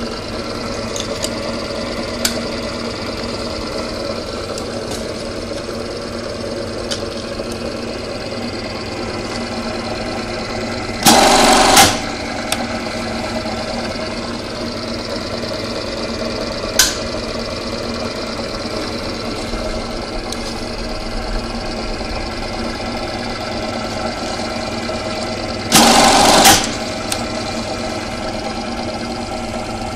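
Industrial JEMA button-sewing machine running with a steady hum, and twice, about fifteen seconds apart, going through a loud stitching cycle about a second long as it sews a button on. There is also one sharp click about halfway between the two cycles.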